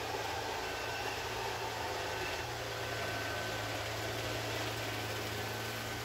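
Neato D7 robot vacuum running: a steady whir from its suction motor and brush, with a faint high whine and a low hum that grows a little stronger about two and a half seconds in.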